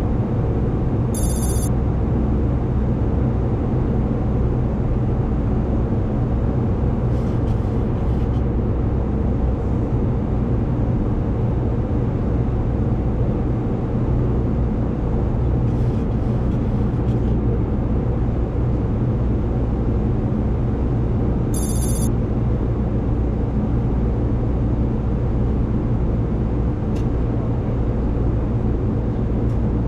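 Boeing 737-800 flight-deck noise on approach: a steady rumble and rush of airflow and engines, with the landing gear extending. A short, high ringing sound comes twice, about a second in and again about two-thirds of the way through.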